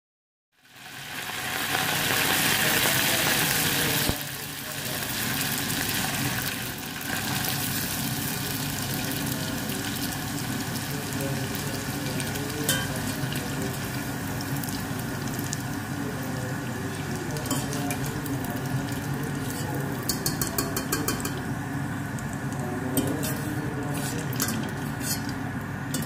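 Dried rice deep-frying and puffing in hot oil in a stainless steel pot: a loud hiss starts about half a second in as the rice hits the oil, easing after about four seconds into steady sizzling. Scattered clicks and taps come near the end as the wire strainer works in the pot.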